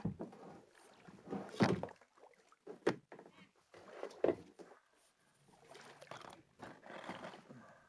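Kayak paddle strokes: the blades dip and splash in the water a few times, a couple of seconds apart, with one sharp knock about three seconds in.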